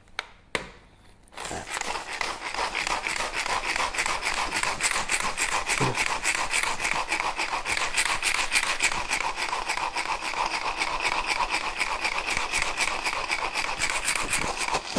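Handheld pull-cord food chopper grinding chillies and garlic to a fine paste: a fast ratcheting whirr that starts about a second and a half in and runs on without a break.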